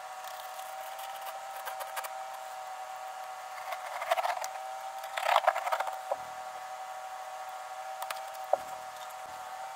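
Carpet rustling and scraping as it is cut and worked loose along a glued-down edge, with two louder bursts about four and five seconds in, over a steady hum. A single click comes near the end.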